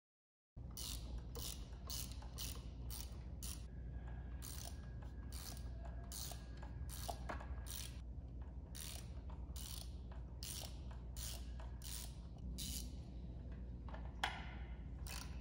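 Socket ratchet wrench clicking in runs of short strokes, with brief pauses between runs, as bolts on a motorcycle flyscreen mount are snugged down after being set finger tight. It starts about half a second in.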